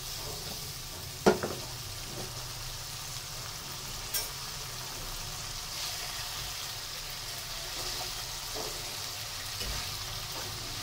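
Hilsa steaks and mustard-spice paste sizzling steadily in oil in a nonstick wok while a spatula stirs and turns them, with a sharp knock about a second in and a few lighter taps later.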